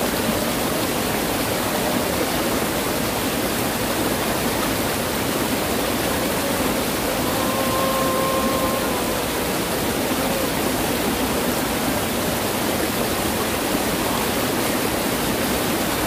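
Mountain stream in spate after heavy typhoon rain, its white water rushing over rocks in a steady, even torrent.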